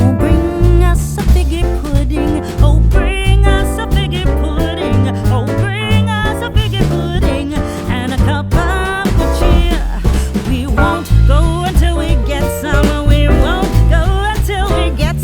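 Background music: an upbeat song with singing, guitar, bass and a steady beat.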